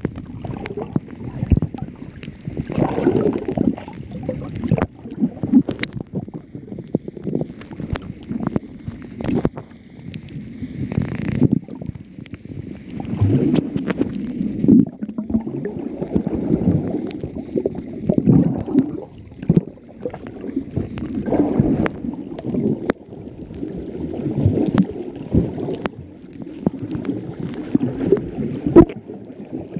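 Water heard from a camera held underwater: a muffled, irregular rumbling and sloshing as water moves around the camera, with scattered sharp clicks throughout.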